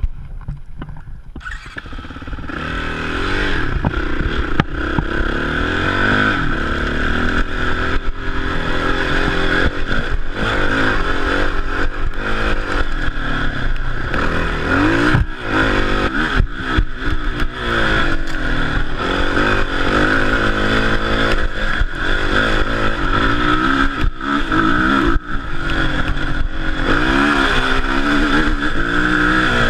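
Yamaha WR450F dirt bike's single-cylinder four-stroke engine, heard from the handlebars, revving up and falling back again and again as it is ridden hard through the gears over a rough dirt track. It is quieter for the first second or two, then loud.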